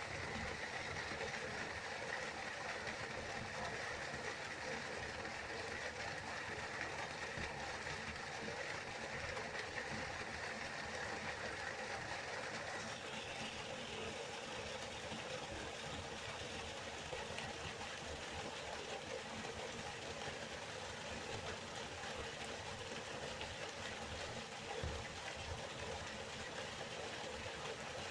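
River water flowing, a steady even rush. About halfway through its hiss shifts a little higher in pitch.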